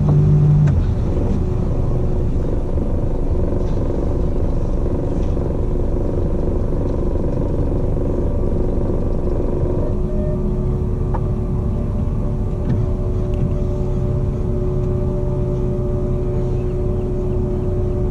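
Boat engine running steadily with a deep rumble and a steady hum; its tone shifts slightly about ten seconds in.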